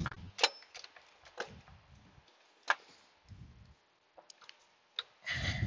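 Hand work on an AC compressor and its refrigerant hose manifold in a truck's engine bay: a few sharp metallic clicks and knocks over dull low thumps as the stubborn manifold is pushed and wiggled to seat it on the back of the compressor.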